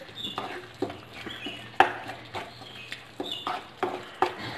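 Spatula stirring thick onion-tomato masala with curd in a nonstick kadai: irregular scrapes and knocks against the pan, about two a second.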